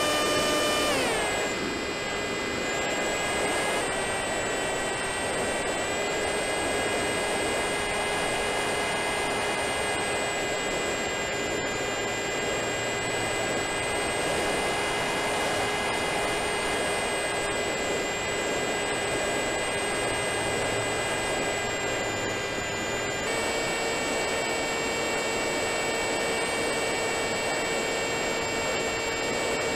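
Electric motor and propeller of a Wing Wing Z-84 flying wing whining steadily in flight, heard from the onboard camera with wind rushing over the microphone. The motor's pitch drops about a second in, shifts slightly a couple of times, and steps back up later on.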